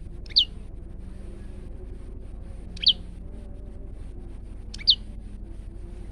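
Male olive-backed tailorbird (prenjak lumut) giving three short, sharp calls, each a quick downward sweep, about two seconds apart, over a steady low hum.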